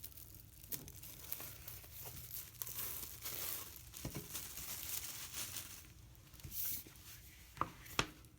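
Plastic shrink-wrap being torn open and crinkled off a printed book, in repeated rustling bursts, with two sharp clicks near the end.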